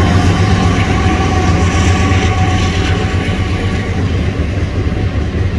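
Diesel-hauled freight train passing: a loud, steady low rumble of locomotives and rolling cars, with two humming tones that fade out about three seconds in.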